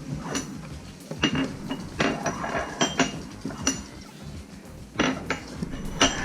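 Toy tea-set dishes clinking and knocking together as they are handled and set down, a short clatter roughly once a second.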